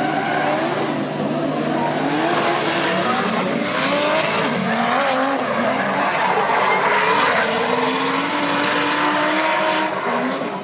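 Two drift cars sliding in tandem, one of them a BMW E36 with a turbocharged 4.4-litre N62B44 V8: the engines rev up and down hard as the throttle is worked, over continuous tyre screech.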